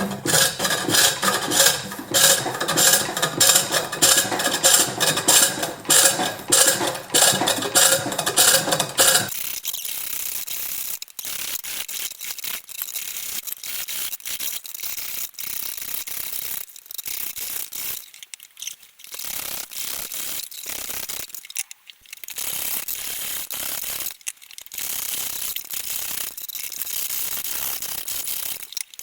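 A turning tool hollowing a green-wood bowl on a pole lathe, the tool chattering against the wood in rapid rattling clicks. About nine seconds in the cutting turns quieter and hissier, broken by short pauses.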